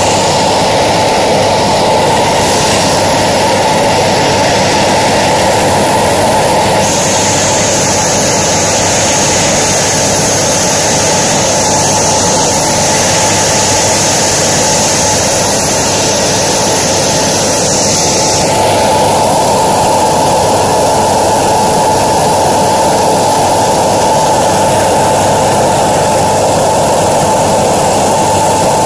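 Airliner jet engine running steadily at idle during a ground run to check a newly replaced integrated drive generator. It is loud and even throughout.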